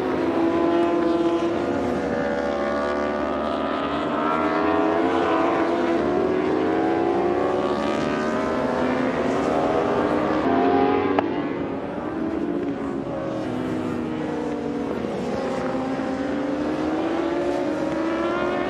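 Racing superbike engines on the circuit, several overlapping, their pitch rising and falling as the bikes accelerate and back off.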